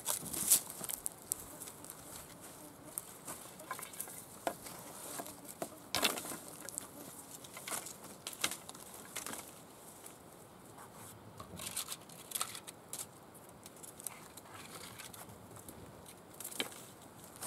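Dry branches and twigs being handled and dropped on a pine-needle forest floor: scattered cracks, clicks and rustles, the loudest about half a second in and again about six seconds in.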